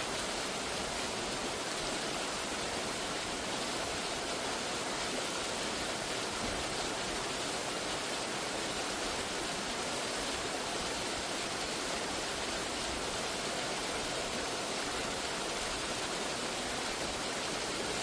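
Rushing water of a waterfall: a steady, unbroken roar of falling water.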